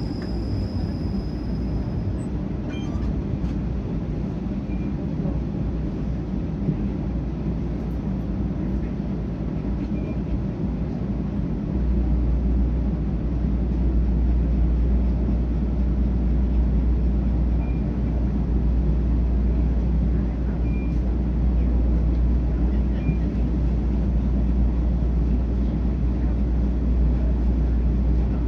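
TTC streetcar running on its rails, heard from on board: a steady rumble of wheels and motors that grows louder about twelve seconds in, with a few faint short squeaks.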